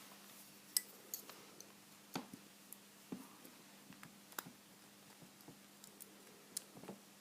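Faint, irregular metallic clicks and ticks of a lock pick and tension wrench working inside a vintage Corbin pin tumbler padlock, a few light taps spread over several seconds.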